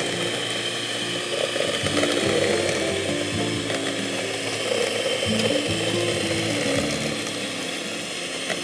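Electric stand mixer running steadily, its beaters turning in a plastic bowl as flour is added to a sugar-cookie dough.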